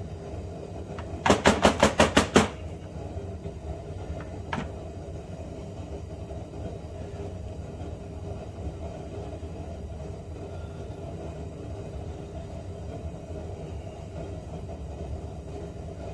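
A quick run of about eight sharp knocks, roughly six a second, then a single click a couple of seconds later, over a steady low hum.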